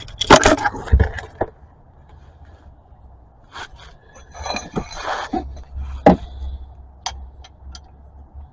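Clinking, clattering and scraping of a drain pan and tools being handled while getting set up under a car: a loud burst of clatter at the start, then scattered sharp clinks and knocks.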